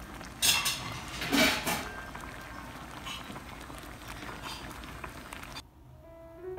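A pot of spicy Korean stew boiling on a portable gas burner: a steady bubbling hiss, with louder spitting bursts twice in the first two seconds. It cuts off about a second before the end.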